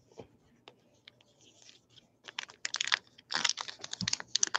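A few light clicks of trading cards handled on a tabletop. Then, about two seconds in, the crinkling rustle of a card pack's wrapper being torn open and peeled back by hand, which gets louder toward the end.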